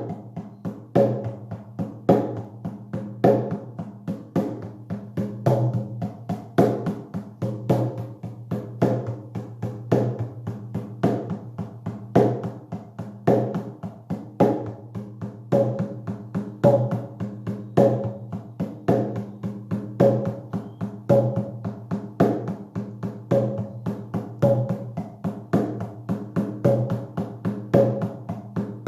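Shamanic hand drum beaten in a steady, even rhythm of several strokes a second, with a stronger beat about once a second and the drum's low ring sustained beneath the strokes.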